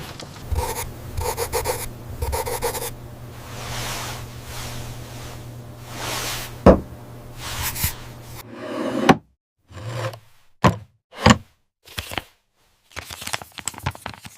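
Dishes and kitchenware clinking and knocking as they are handled. There are a few ringing clinks at first, then a run of separate knocks and clatters with short silences between them.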